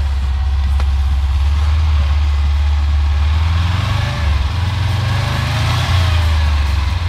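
LuAZ-969's engine running under load as the little 4x4 crawls up a muddy rutted track, its note rising and falling from about halfway through.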